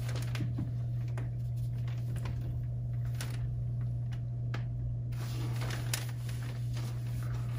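Steady low room hum with scattered light clicks and taps of paintbrushes and small paint pots being handled on a table during rock painting.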